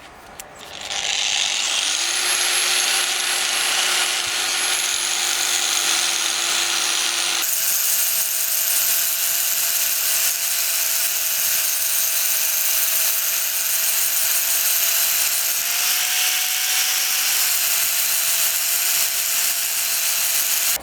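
Power tool spinning a wire brush against the rusty steel body of an old grease-gun oiler, scrubbing off rust and dirt. The motor spins up to a steady whine about a second and a half in, over a continuous scratchy brushing noise, and its pitch shifts briefly near the end.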